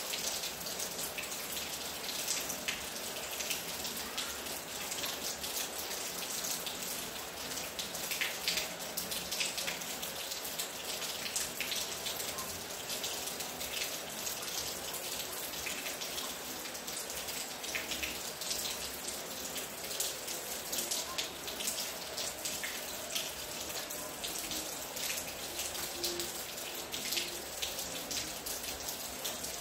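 Steady rain falling, many sharp individual drop hits over an even hiss.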